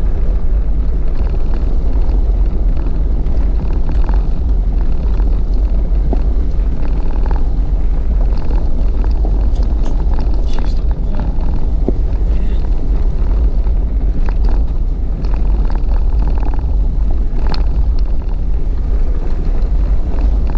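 Jeep driving on a rough unpaved road: a steady low rumble of engine and tyres, with scattered short clicks and knocks from stones and rattles.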